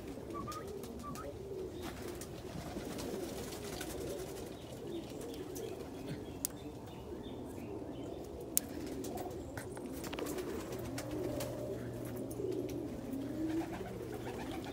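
A flock of domestic pigeons cooing together in a steady, low, warbling chorus, with two sharp clicks midway.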